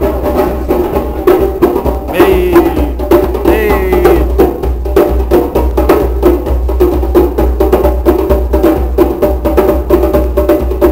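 Music: a beat with a steady deep bass line and rapid, busy percussion hits. A wavering pitched voice or sample rises over it about two to four seconds in.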